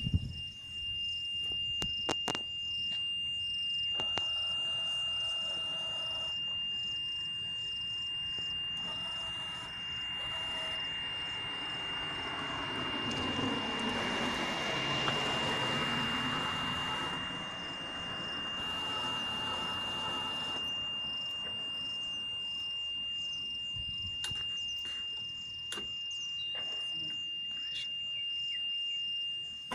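A fire truck's electronic warning buzzer sounding one steady high-pitched tone without a break. A broad rushing noise swells and fades over several seconds around the middle.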